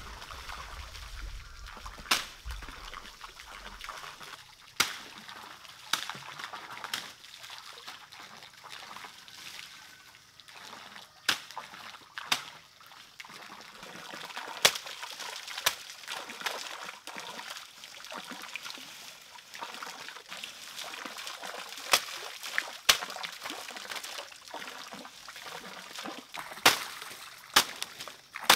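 Steady trickle and splash of pond water, broken by irregular sharp chops of a machete cutting leafy green stalks.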